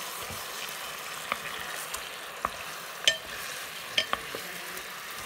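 Char siu pork and its thick sauce sizzling in a rice cooker's non-stick inner pot: a steady hiss with a few sharp pops and crackles, the loudest about three seconds in.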